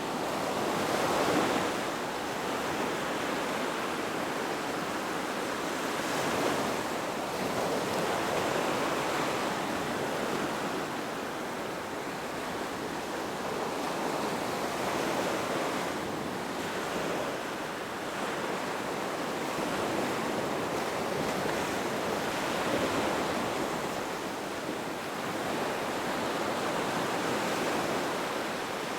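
Ocean waves washing onto a beach, a continuous surf hiss that swells and eases every few seconds.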